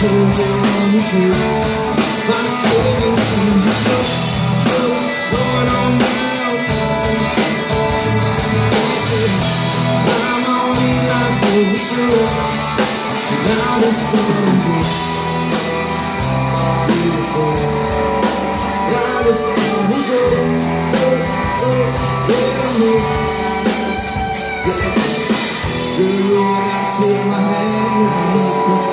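Live band playing a song: a lead singer over guitars and a drum kit, amplified through a PA.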